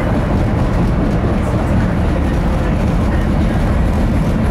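CTA Blue Line rapid-transit train running along a station platform: a steady, loud rumble of wheels on rail and traction motors as it pulls into the station.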